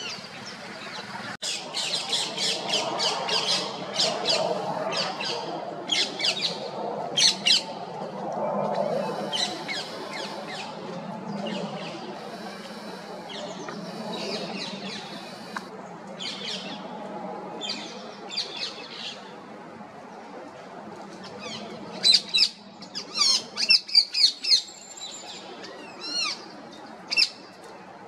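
Rose-ringed parakeets giving short, sharp squawking calls in irregular runs, with a loud rapid series near the end, over a steady low background noise.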